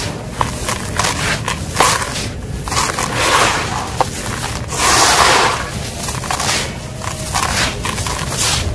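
Hands scooping and crunching small grey gravel chips, then letting handfuls pour back into the pile in a rattling, hissing stream that swells and fades several times.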